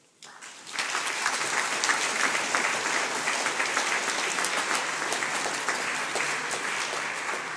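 A large audience applauding a finished poetry reading: the clapping starts about a fifth of a second in, swells within half a second to a full, dense ovation and holds steady, easing slightly near the end.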